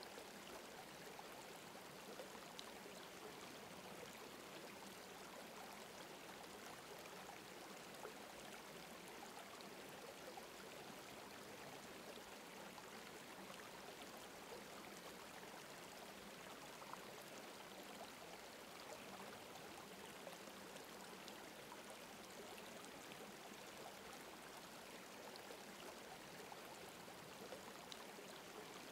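Faint, steady sound of running water, like a gently flowing stream, with no other events.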